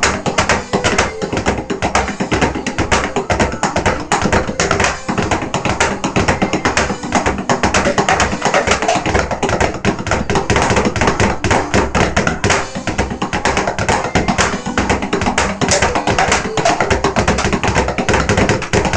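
Fast, continuous drumming with sticks on an electronic drum kit, many strikes a second without a break.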